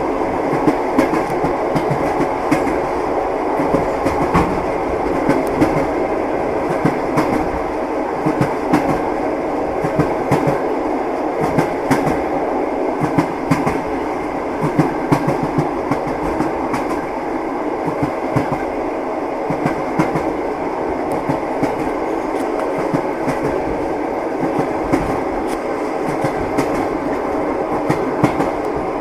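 Train wheels clattering on the rails: a steady rumble with frequent short knocks at uneven spacing as the wheels run over rail joints.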